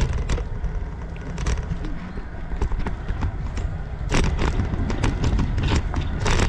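Wind buffeting the microphone of a bicycle-mounted action camera while riding, with tyres rolling over a rough, cracked paved path and frequent clicks and rattles from the bike. The knocks come thicker and louder from about four seconds in.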